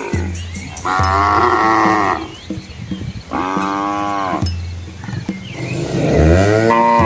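Village cattle mooing: three long moos, each lasting a second or more, coming about every two and a half seconds.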